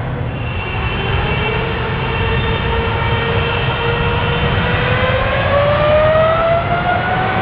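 Jet engines of an Emirates wide-body airliner at the start of its takeoff roll: a steady low rumble under a whine that holds, then rises in pitch through the last few seconds as the engines spool up to takeoff thrust.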